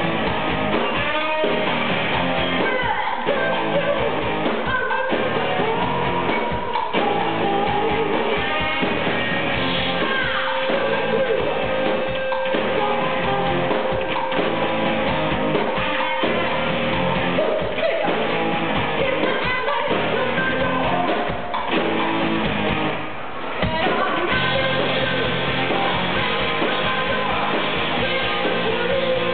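Live rock band playing: a singer over electric guitar and drums.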